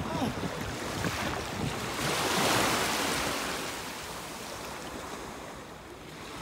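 Small waves washing in shallow surf, one wash swelling to its loudest about two to three seconds in and then easing, with some wind on the microphone.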